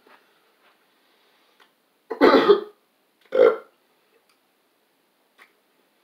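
A man burping loudly twice, about a second apart, the first burp longer than the second.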